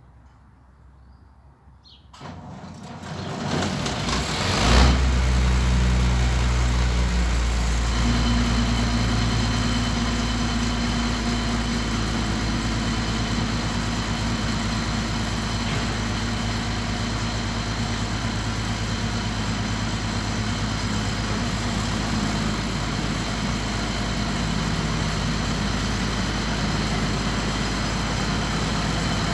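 Zmaj 142 combine harvester's diesel engine cold-starting after five months standing. It turns over for a couple of seconds and catches about five seconds in with a loud burst, then settles into a steady idle.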